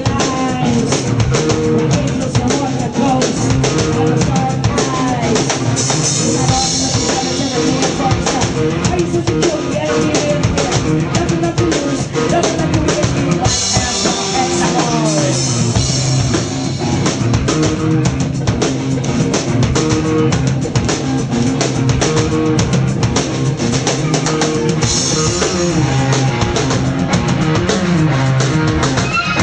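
A live rock band playing an instrumental stretch, with a pounding drum kit and electric guitar. It is loud and dense throughout, with no singing.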